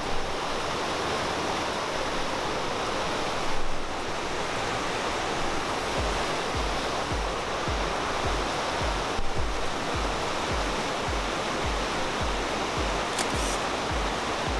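Steady rush of mountain stream water and waterfalls. About six seconds in, a low, even beat of background music comes in at roughly two beats a second.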